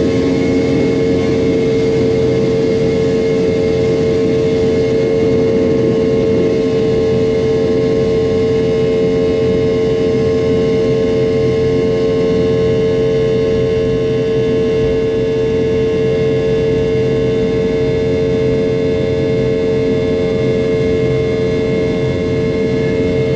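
Boeing 717's rear-mounted Rolls-Royce BR715 turbofan at takeoff thrust during the takeoff roll, heard inside the cabin right beside the engine: a loud, steady drone with a strong held tone and several higher ones over a rushing noise.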